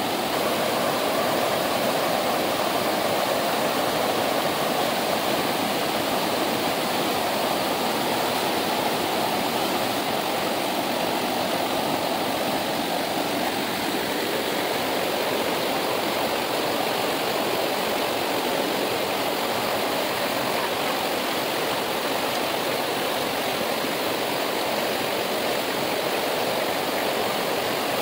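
Himalayan river water rushing, a steady, even noise with no change through the stretch.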